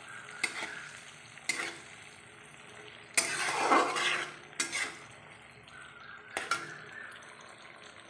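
Spatula stirring lumps of milk cream (malai) as they sizzle in a kadhai, with the cream being rendered down into ghee. Several short knocks of the spatula against the pan sound over a steady low sizzle, and there is one longer scrape about three seconds in.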